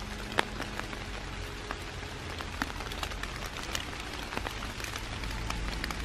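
Dry leaf litter and twigs rustling and crackling close to the microphone as hands pick mushrooms from the forest floor, with many small clicks and one sharp snap about half a second in.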